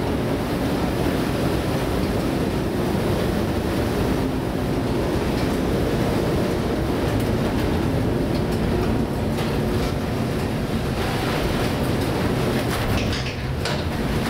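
Steady heavy rumble and rattle heard inside the wheelhouse of an emergency rescue and response vessel pitching through storm seas: engine and hull noise mixed with wind and rushing water, with a few sharp spatters near the end as spray sweeps over the bow.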